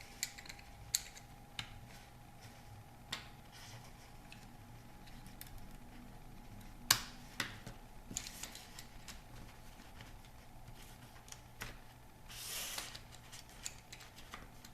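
Scattered small clicks and taps of rigid LED light bar sections being pushed into their connectors, with the sharpest click about seven seconds in and a brief scraping rustle near the end.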